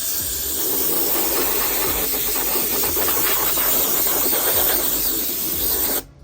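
Compressed-air blow gun blasting dirt off an RC truck: a steady, loud hiss of air that cuts off suddenly about six seconds in.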